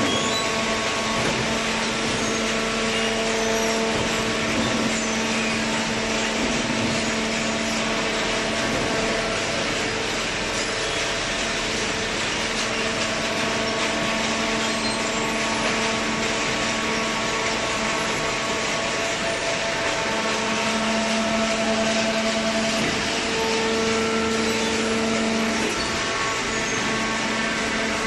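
Horizontal cardboard baler running, its hydraulic power unit and feed conveyor making a steady mechanical drone over a wide rushing noise. The hum tone strengthens for a few seconds late on.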